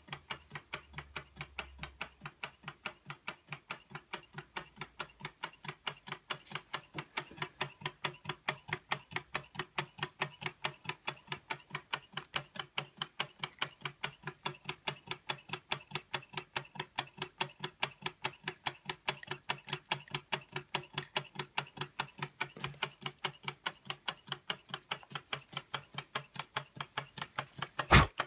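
Early Carette hot air (Stirling) engine of about 1902 running, its mechanism clicking evenly about five times a second. A single louder knock comes near the end.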